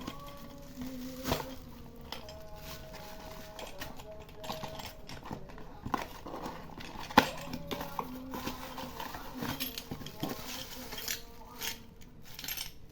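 Scattered clicks, taps and rustles of a parcel and its contents being handled and opened, irregular and of varying loudness, with one sharper knock about seven seconds in.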